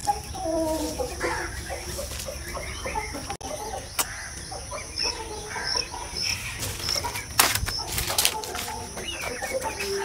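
Birds calling in the background with short repeated calls. From about five seconds in, a higher chirp repeats about twice a second. A few sharp clicks or knocks come near the fourth and eighth seconds.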